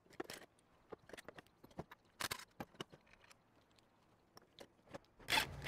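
Scattered light clicks and knocks of metal parts and screws being handled on a work table while a pressure washer pump is taken apart. Near the end a cordless drill-driver starts running.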